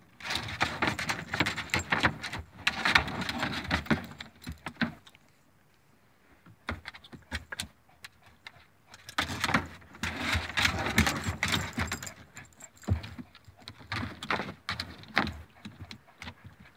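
Kayak paddling: water splashing and dripping from the paddle with irregular clicks and rattles, in two long spells about four seconds apart, with scattered clicks between and after.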